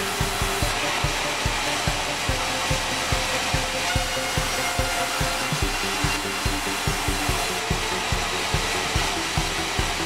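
Sawmill band saw and its drive running steadily, a continuous mechanical whine with a rapid low thumping of roughly three beats a second.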